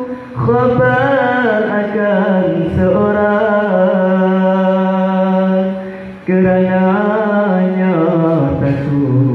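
Male voice chanting an Islamic devotional song in long, wavering held notes. The chant breaks off briefly about six seconds in and resumes, then drops lower near the end.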